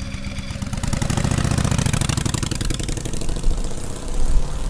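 Small motorcycle engine running with a rapid, even beat, getting louder about a second in.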